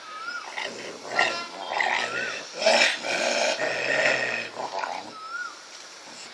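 Dogs fighting: a cocker spaniel and a street dog snarling and growling in a rough, continuous scuffle from about half a second in until about five seconds in.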